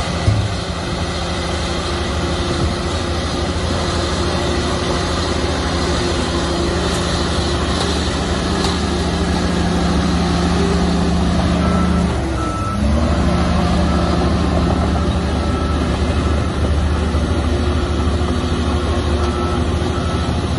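Shantui bulldozer's diesel engine running steadily under load. About twelve seconds in, the engine note briefly drops and recovers, and then a reversing alarm beeps at an even pace, with a pause and a second run of beeps near the end.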